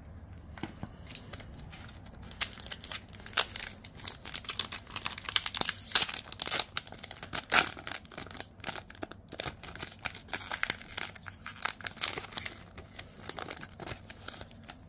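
Foil trading-card pack being torn open and crinkled in the hands: a dense run of sharp, papery crackles that starts about two seconds in and eases off near the end.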